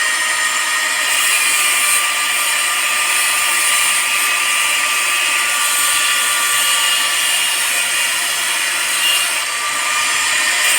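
Electric cutter machine running steadily at speed, a loud, even high-pitched whine with hiss.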